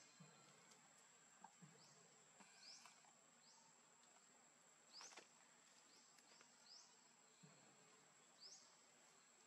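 Near silence: faint outdoor ambience with a steady high-pitched whine and short, high rising chirps that recur every second or two, plus a few faint clicks.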